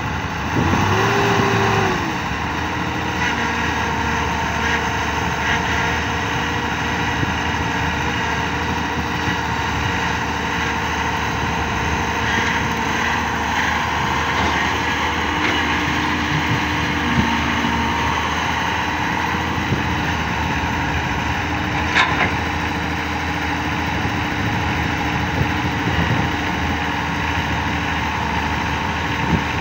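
Hyundai wheeled excavator's diesel engine running steadily as it digs and loads soil, its pitch rising and falling briefly near the start as the hydraulics take load. A single sharp clank comes about two-thirds of the way through.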